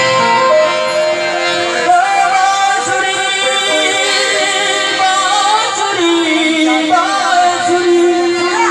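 Music: a Gujarati devotional song, with a voice singing a wavering melody over steady held instrumental notes.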